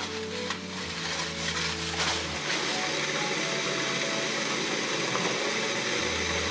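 Food sizzling and frying in a closed pan on a portable gas stove, a steady hiss that grows fuller about two seconds in, under background music with slow held notes.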